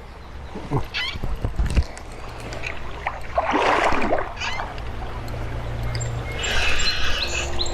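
Shallow creek water splashing and gurgling, with a few sharp knocks about a second in.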